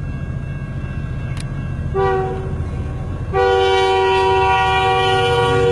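Canadian National freight locomotive's air horn sounding for the grade crossing: a short blast about two seconds in, then a long, loud blast starting about three and a half seconds in. Under the horn is the steady low rumble of the train's diesel locomotives.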